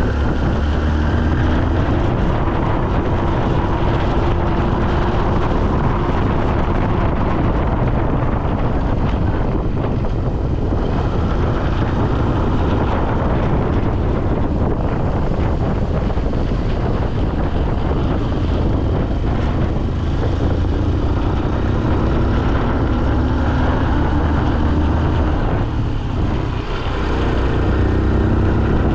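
Wind buffeting the microphone of a moving camera: a steady low rumble, with a faint tone underneath that slowly drifts in pitch.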